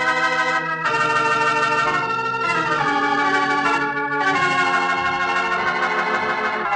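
Organ playing the show's closing theme in sustained, full chords that change every second or two.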